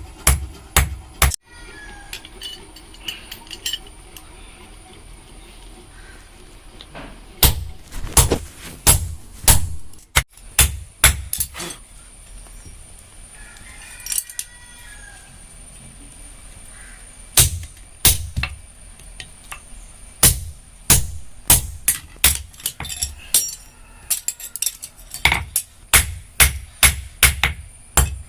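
Hand hammer striking steel on an anvil while forging the blade of a chirava (coconut scraper). The sharp, ringing blows come in runs, about three a second at their fastest, with pauses between the runs.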